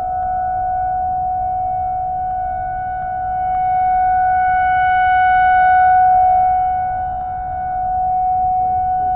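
Outdoor tornado warning siren being tested, holding one steady wailing tone after winding up. It grows louder through the middle and then eases off.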